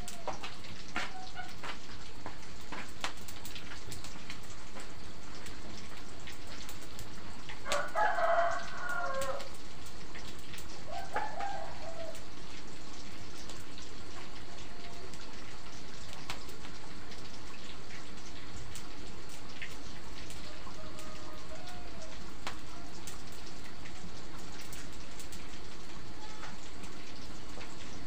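A rooster crowing: one long crow about eight seconds in, followed by a shorter call a couple of seconds later, over a steady background hiss with a few faint ticks.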